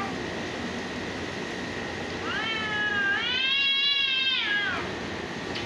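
Domestic cat giving one long, drawn-out yowl from about two seconds in, rising in pitch and then falling away near the end. It is the threat yowl of two cats in a standoff before a fight.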